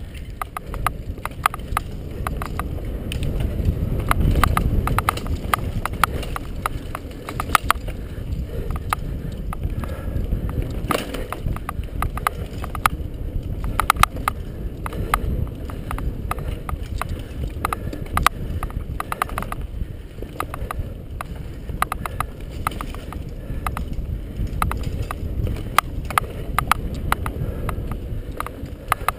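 Mountain bike ridden fast down a dirt singletrack, recorded on the bike: a steady low rumble of wind and tyres, with frequent irregular clattering knocks and rattles from the bike over bumps.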